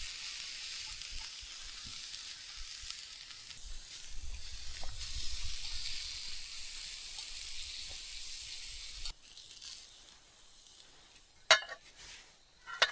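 Butter and chopped apple and pear sizzling in a hot cast iron pan over a campfire, a steady hiss. The sizzling stops abruptly about nine seconds in, and two sharp knocks follow near the end.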